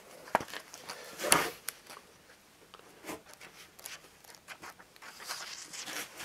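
Pages of a glossy magazine being turned and handled: paper rustling and crinkling with small clicks, a louder rustle about a second in and denser rustling near the end.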